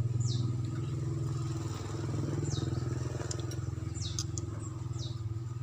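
A steady low motor hum runs throughout, like an engine. Short high chirps that fall in pitch repeat every second or so.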